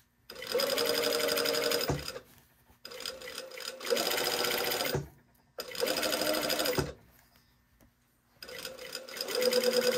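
Industrial single-needle straight-stitch sewing machine running in four short bursts with brief stops in between, stitching a facing onto a curved knit neckline.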